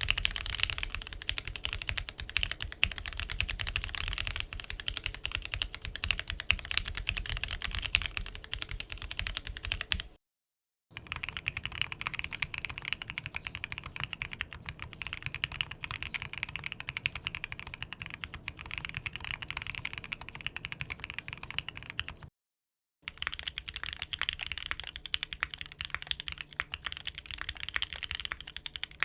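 Fast typing on a mechanical keyboard fitted with Alexotos Granite linear switches: a dense run of key clacks. The typing stops briefly about ten seconds in and again about twenty-two seconds in, so it falls into three separate runs of typing.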